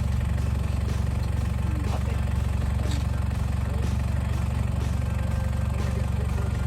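Off-road truck's engine idling steadily, a constant low drone with no revving.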